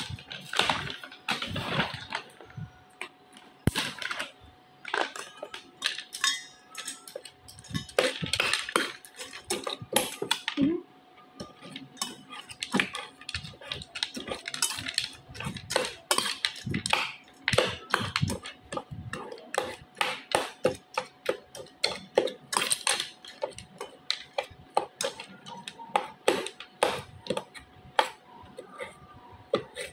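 Metal spoon stirring dry dog kibble and rice in a stainless steel bowl: irregular clinking and scraping of metal on metal, with the kibble rattling. Near the start, a plastic bag crinkles.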